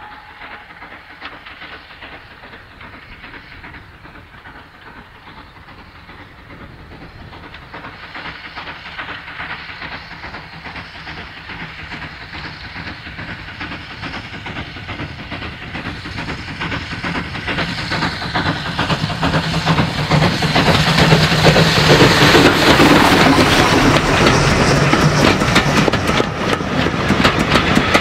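SECR C class 0-6-0 steam locomotive No. 592 approaching, its steam exhaust growing steadily louder. It is loudest about three quarters of the way in as it passes, and its coaches clatter rapidly over the rail joints near the end.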